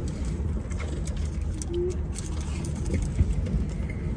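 Low, steady rumble inside a parked car's cabin, with a few faint clicks from handling food.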